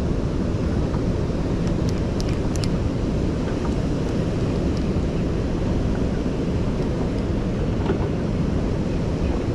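Wind buffeting the microphone, a steady low rumble, with a few faint high clicks about two seconds in.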